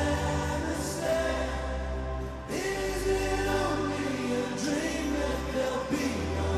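Live rock band music: slow sustained chords over a steady bass, with wordless choir-like backing vocals.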